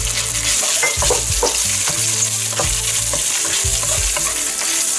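Cornstarch-coated chicken fillet pieces sizzling in hot oil with garlic in a nonstick wok, stirred with a wooden spatula that scrapes and knocks against the pan every so often.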